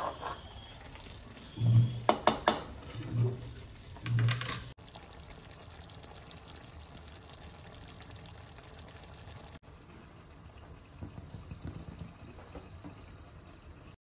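Kitchen cooking sounds: a few dull knocks and quick sharp clinks of utensils on cookware in the first few seconds, over a faint steady hiss, with light rattling near the end.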